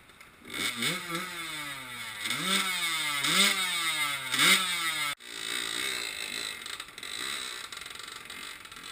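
Yamaha YZ85 two-stroke dirt bike engine revved in about five short blips, each pitch climbing quickly and sagging back, over the rush of creek water. About halfway through the sound cuts off abruptly, and the engine carries on more faintly.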